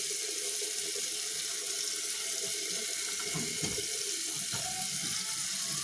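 Water running steadily from a sink tap, with a few faint knocks in the middle as parts are handled under it.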